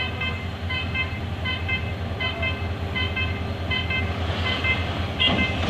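Level-crossing warning alarm sounding, a steady repeating pattern of short high electronic tones, over the low rumble of the approaching DE 33000-class diesel locomotive, which gets a little louder near the end.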